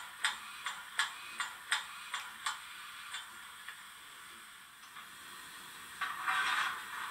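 Roco HO-scale BR 18 steam locomotive's sound decoder playing exhaust chuffs through its small speaker, a little under three a second, slowing and fading out in the first few seconds; near the end a burst of steam hiss.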